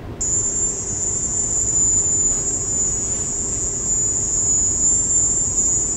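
AP's recording of the Havana 'sonic attack' noise heard by U.S. embassy workers: a loud, steady, piercing high-pitched cricket-like whine over a low background hum. It starts abruptly just after the start. Its cause remains undetermined.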